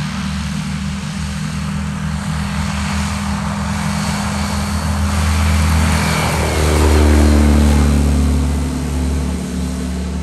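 Turbocharged Rotax 915iS four-cylinder engine and propeller of a Just Aircraft SuperSTOL running at takeoff power. It grows louder as the plane rolls toward and past during the takeoff run, and its pitch drops as it goes by about seven seconds in.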